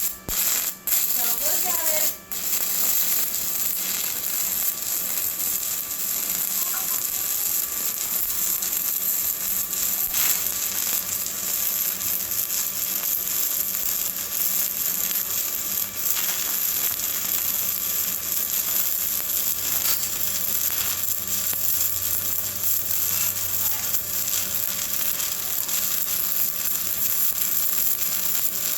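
Stick welding arc burning a 7018 electrode, with a steady crackling hiss. It breaks off and restrikes a couple of times in the first two seconds, then runs evenly.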